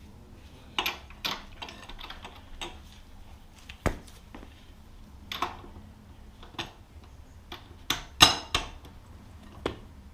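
Irregular metallic clinks and knocks of a socket wrench being fitted to and worked on a motorcycle's front axle bolt, a dozen or so short strikes at uneven intervals, the loudest a pair about eight seconds in.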